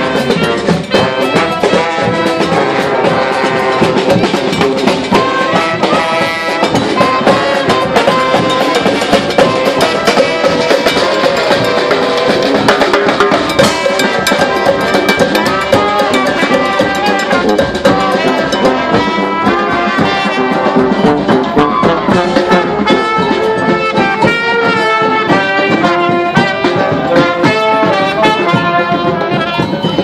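Marching brass band playing: trombones, trumpets and sousaphone over a bass drum beat, loud and without a break.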